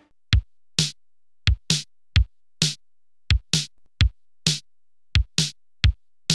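Electronic drum-machine beat: low bass-drum kicks, each followed by a sharp snare-like hit, in a sparse, uneven pattern with nothing else playing between them.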